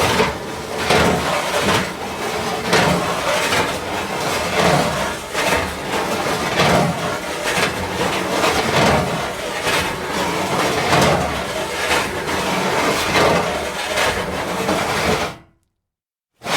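Metal sheets sliding and scraping against each other in repeated strokes, swelling about once a second, with occasional knocks. The scraping stops about a second before the end.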